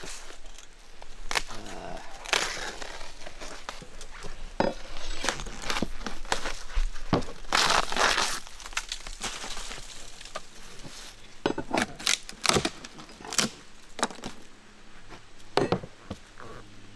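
Old black roofing being torn and peeled up by hand off plywood roof sheathing: crackling and tearing, with scattered sharp knocks and a longer tearing stretch about halfway through.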